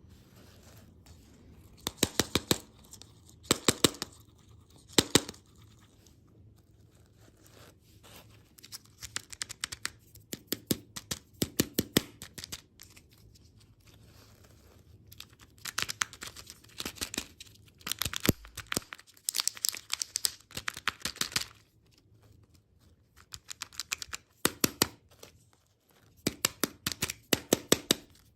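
Candy being handled up close: crisp tearing and crackling in bursts of about a second, each made of many rapid sharp clicks, separated by short pauses.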